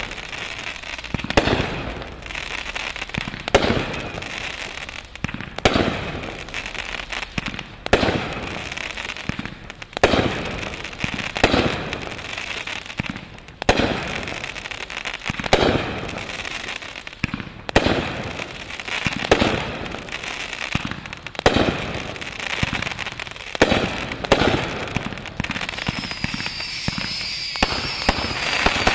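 Regal Celebration consumer firework cake firing shot after shot, with a sharp bang about every two seconds. Between the shots there is a steady hiss from the rising sparkling tails and their bursts, and a faint high whistle comes in near the end.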